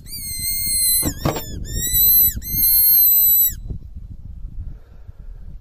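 A hand whistle blown in three long, high blasts, each sliding down in pitch at its end, stopping about three and a half seconds in. A brief sharp noise cuts in about a second in.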